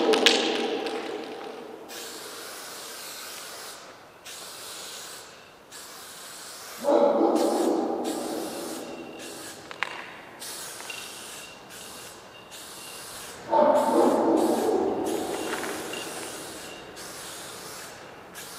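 Aerosol spray-paint can hissing in strokes of varying length, with short breaks between them, as letters are sprayed onto a tiled wall. A low chord of several tones swells in about seven and again about thirteen seconds in, each time fading over several seconds.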